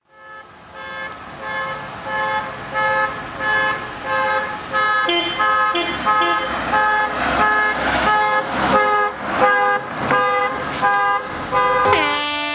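Multi-tone car horn sounding a fast repeating run of notes that change in pitch, ending in one long held tone.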